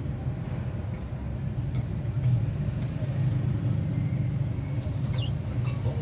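Steady low rumble, with a budgerigar giving one short gliding chirp about five seconds in.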